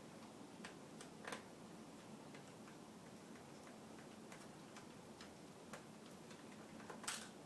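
Faint, scattered clicks and ticks of a small Phillips screwdriver backing screws out of a laptop's screen bracket, with a louder click about a second in and another near the end.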